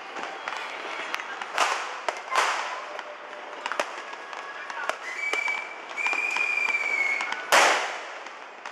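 Firecrackers and fireworks going off in a city street: scattered sharp bangs and pops, three big ones about a second and a half in, two and a half seconds in and near the end, each echoing off the buildings. A high steady whistle sounds for about two seconds past the middle.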